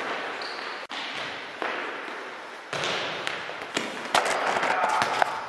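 Futsal ball kicked and bouncing on a wooden gym floor: a series of irregular thuds, each echoing through the hall.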